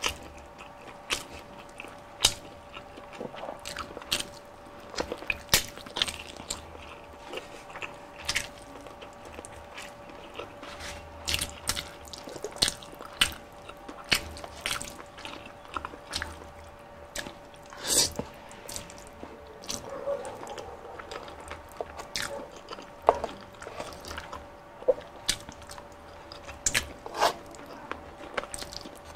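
Biting and chewing food, with many sharp crunches at irregular intervals, as fried chicken and palabok noodles are eaten.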